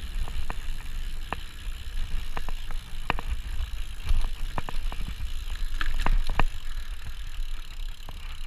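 Mountain bike rolling fast over a dirt trail: a steady low rumble of wind on the action camera's microphone and tyres on the ground, with irregular sharp clacks and rattles from the bike as it goes over bumps.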